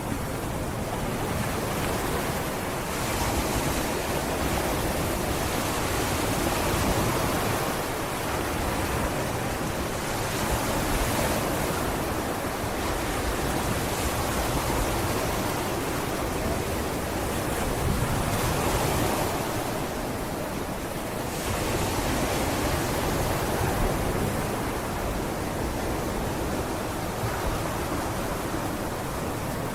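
Sea waves breaking and washing up on a beach: a continuous rush of surf that swells and eases every few seconds, with some wind on the microphone.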